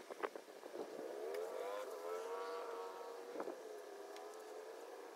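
A motor drones steadily in the background, its pitch wavering slightly up and down, with a few sharp clicks near the start and about three and a half seconds in.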